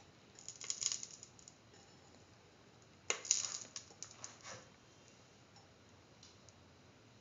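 Light clicking and clinking in two short bursts, about half a second in and again about three seconds in, as oil is poured into a stainless steel cooking pot.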